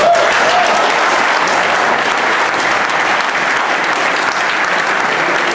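Crowd of spectators clapping steadily, with a brief shout or two near the start.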